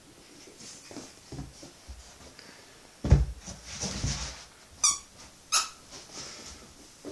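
Ten-week-old kelpie puppy playing with a plush teddy on carpet: scuffling and soft thuds, the loudest thump about three seconds in. Then two short high squeaks come under a second apart, about five seconds in.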